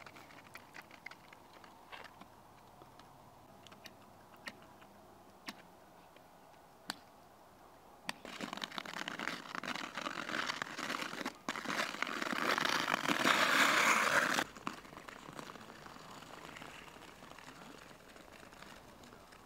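Ice skate blades scraping and hissing on lake ice, louder as the skater comes closer, then cutting off suddenly about two-thirds of the way through. A few faint clicks come before the scraping.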